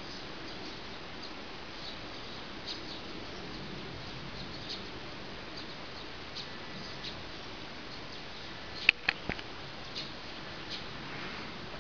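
Outdoor ambience: a steady hiss with faint, short high chirps scattered throughout, and a brief cluster of sharp clicks about nine seconds in, the loudest moment.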